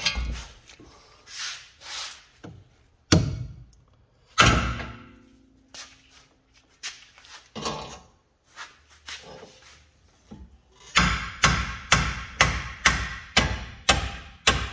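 A hammer striking the steel front steering knuckle of a 2014 Toyota Venza, with the joint nut left on, to knock a tapered joint stud loose. A few single blows come a couple of seconds apart, one leaving a short metallic ring. Near the end comes a quick run of about ten blows, two to three a second.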